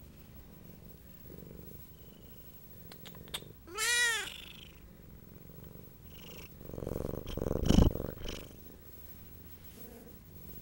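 Siamese cat purring while being stroked, with one short meow that rises and falls in pitch about four seconds in. A louder close-up rubbing noise follows, loudest just before the eight-second mark.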